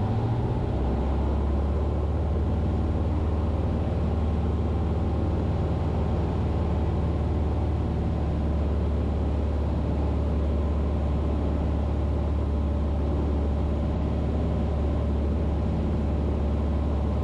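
Cessna 150's four-cylinder Continental O-200 engine and propeller running steadily in flight, a constant low drone heard inside the small cockpit.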